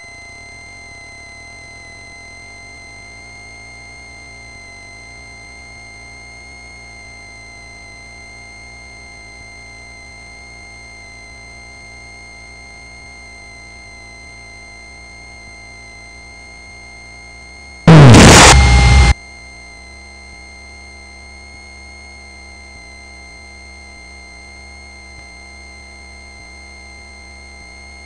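Steady hiss and faint hum of a light aircraft's cockpit intercom feed during taxi, with the engine heard only as a low muffled drone. About 18 seconds in, a loud burst of radio or intercom static lasts about a second, then the low drone comes back slightly stronger.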